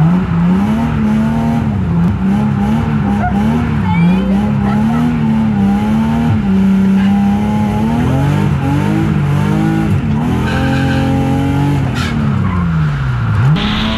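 BMW E36 328i's straight-six engine revving up and down hard through a drift, with tyres skidding and squealing, heard from inside the cabin. The revs swing constantly, hold steady for about a second in the middle, and drop sharply near the end.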